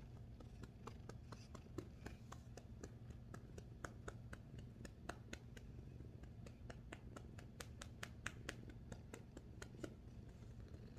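Domestic cat purring low and steady while being stroked, with many faint irregular clicks and scratchy ticks over it.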